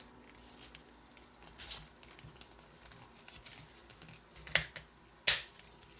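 Plastic puzzle pieces clicking as they are twisted and turned by hand: a few soft clicks, then two sharper clicks a little before the end.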